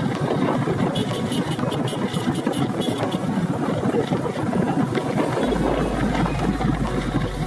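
Bajaj CT100 motorcycle's small single-cylinder four-stroke engine running steadily while riding.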